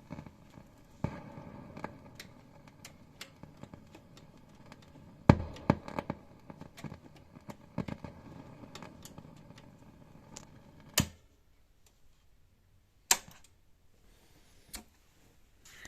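Hughes & Kettner GrandMeister 40 guitar amp crackling and popping through its speaker: irregular sharp pops and crackles over a faint hum and hiss, the sign of a fault in the amp. The crackling dies down about eleven seconds in, leaving only a few isolated pops.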